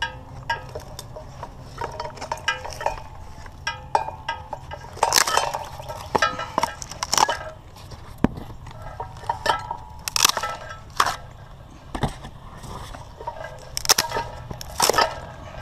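Hands pulling and shifting a torn cardboard box and the scrap items beside it: rustling, crackling cardboard with scattered knocks and light clinks, over a steady low hum.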